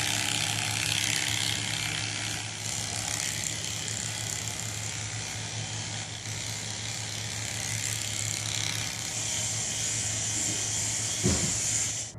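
Electric hair clippers buzzing steadily while cutting hair, with a short knock about eleven seconds in.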